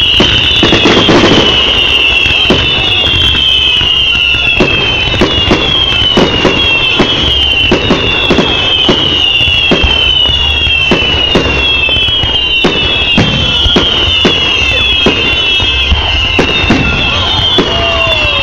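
Fireworks going off continuously: many sharp bangs and crackles, over a steady high falling chirp that repeats about once a second.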